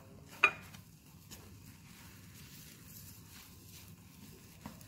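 Spatula stirring thick cooked semolina dough in a pan, soft squishing and scraping, with one sharp knock about half a second in and a lighter one near the end.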